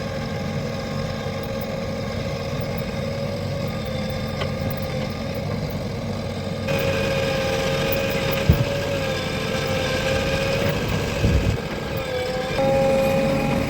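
Diesel engine of a JCB 3DX backhoe loader running steadily under work, with a steady high whine over the engine note; it gets louder about two-thirds of the way through and again near the end. A couple of short low thuds come in the later half.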